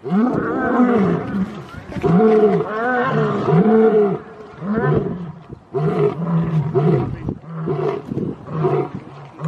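Lion roaring: a few long calls that rise and fall in pitch, then a run of shorter grunts.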